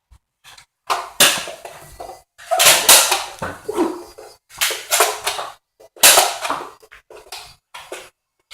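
Commotion of an indoor Nerf fight: an irregular run of about a dozen short, loud, noisy bursts with brief gaps between them.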